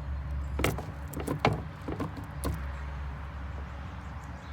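Several sharp knocks and clicks of wooden beehive frames and boxes being handled and scraped during a hive clean-out, over a steady low hum.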